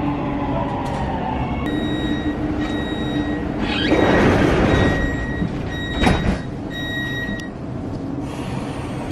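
Siemens Inspiro metro train's sliding doors working, over the train's steady hum. An electronic warning beep sounds on and off for several seconds, with a loud rush of noise as the doors move and a sharp thud of a door about six seconds in.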